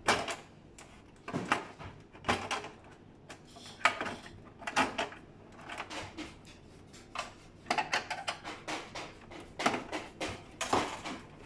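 Irregular plastic clicks, knocks and rattles of a Fuji Xerox DocuPrint CM225 printer's cover panels and snap-in clips being pushed and pried loose by hand.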